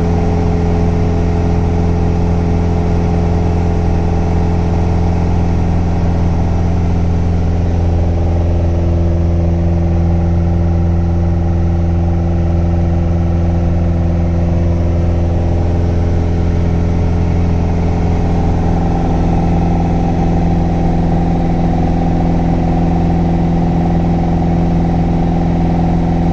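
Light aircraft's engine and propeller droning steadily at climb power, heard from inside the cabin. The low hum holds one even pitch throughout.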